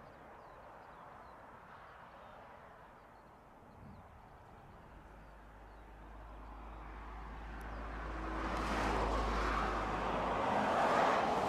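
A road vehicle passing close by. Its noise builds with a low rumble over several seconds and is loudest near the end, over faint steady background noise.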